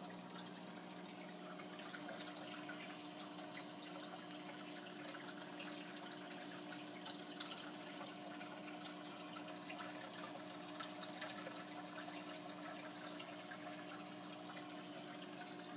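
Aquarium water trickling and splashing with many small drips, over a steady low hum.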